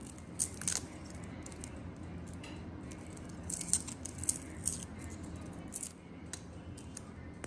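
Garlic cloves being peeled with a small knife: light crackling of dry papery skins and small clicks of the blade, in scattered clusters.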